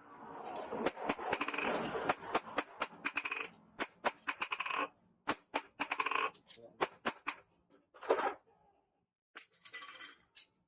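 Irregular sharp metallic clicks and clinks mixed with short scraping bursts from hand work on the steel knife blank. They fall quiet for about a second, and a final short burst comes near the end.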